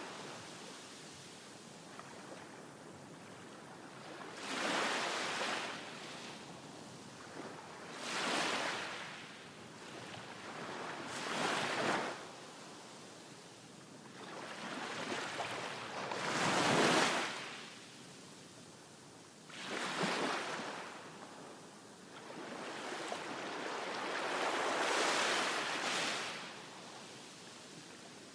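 Ocean surf breaking on a shore: about six waves, each a rising and falling rush of noise every three to five seconds, with a quieter steady wash between them. The loudest wave comes a little past the middle.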